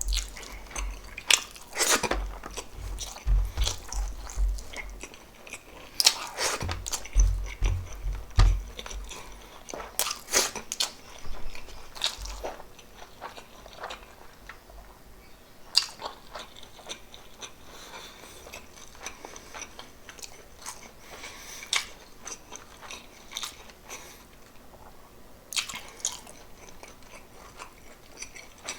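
Close-miked chewing and biting of pork adobo and rice, with irregular wet mouth clicks and smacks. A few clusters of low thumps come in the first nine seconds or so.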